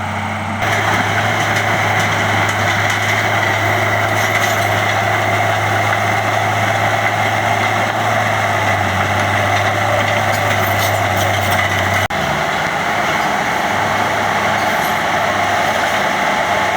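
Bulldozer's diesel engine running steadily while it grades the driveway; the engine note shifts about twelve seconds in.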